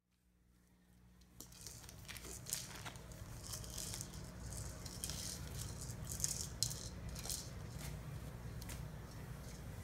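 Plastic treat ball with dry cat treats inside, rattling irregularly as a cat pushes it across a tile floor, with a few sharper clicks as it knocks about. The rattling starts about a second and a half in.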